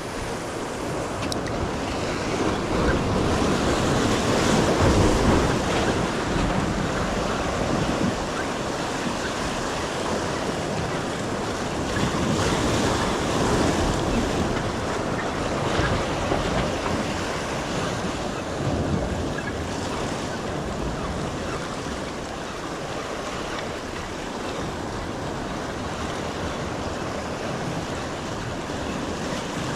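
Ocean surf washing onto the shore, with wind on the microphone; the wash swells louder about four seconds in and again around twelve to sixteen seconds.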